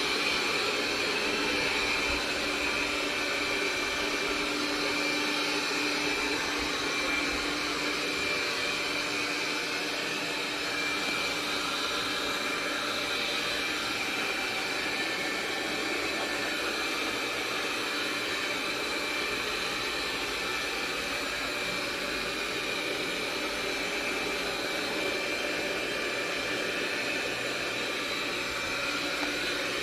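iNIC i9 robot vacuum running steadily while cleaning: an even suction hiss with a constant high whine from its motor.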